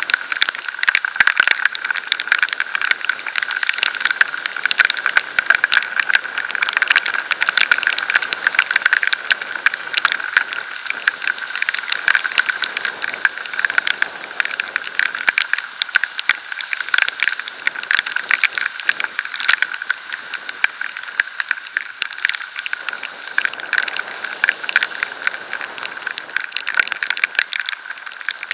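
Raindrops and road spray striking the camera while riding at speed: a dense, irregular patter of sharp ticks over a steady hiss.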